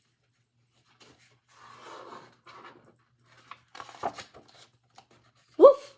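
A woman's voice barks "Woof!" once near the end, imitating a dog. Before it come soft, faint rustling and breathy noises with a few light clicks.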